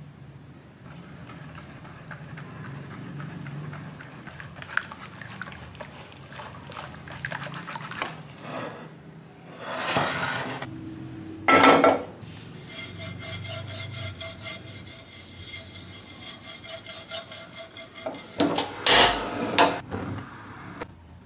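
Wire whisk beating pancake batter in a wooden bowl, with scraping and light clinks of the wires against the bowl. In the second half come a few loud knocks and a rapid, even ticking as a gas stove burner is turned on.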